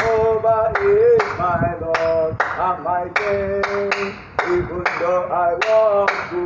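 A man singing a praise song, clapping his hands about twice a second.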